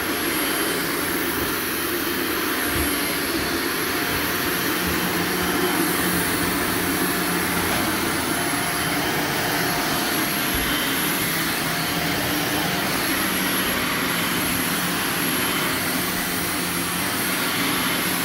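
Carpet extractor's vacuum motor running steadily, an even rushing noise with a faint high whine, as it pulls dirty water from the carpet into its recovery canister.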